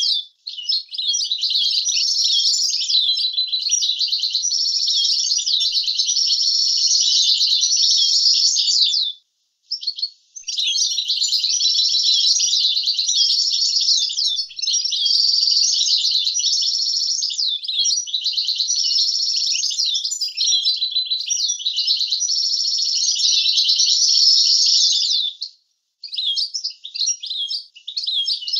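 European goldfinch singing its fast, twittering song in long unbroken phrases, with a break about nine seconds in and another short one near the end.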